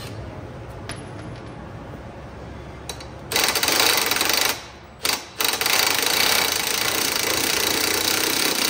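Cordless impact wrench hammering on the bolt of the engine's dogbone (pendulum) mount to break it loose. It goes in a burst of a little over a second about three seconds in, a brief blip, then runs steadily for about three seconds.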